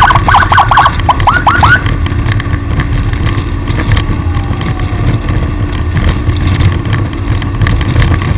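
Electronic warning chirps, a rapid series of short rising whoops, in quick clusters for the first couple of seconds. After that there is steady motor-vehicle running and road noise.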